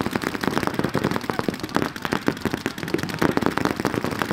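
Several paintball markers firing rapid strings of shots at once, a dense, uneven crackle of sharp pops.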